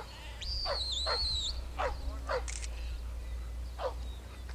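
A shepherd's long, high whistle command with a wavering pitch, then a working sheepdog, likely a Huntaway, barking about five short barks spread over a few seconds. A steady low rumble of wind runs underneath.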